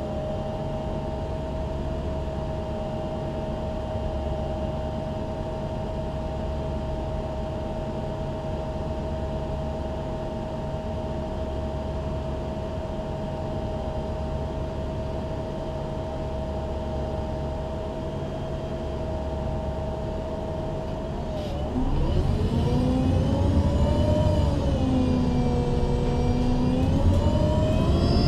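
MAN Lion's City G articulated CNG bus idling with a steady whine. About 21 seconds in it gets louder as the bus pulls away: the engine note rises, falls back at a shift of the Voith automatic gearbox, and climbs again near the end.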